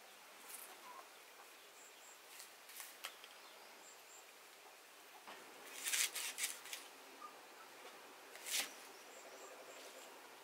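A kitchen knife chopping green onions on a wooden chopping board: a quick run of chops about six seconds in and one more a couple of seconds later, with a few lighter clicks earlier. Faint bird chirps in the background.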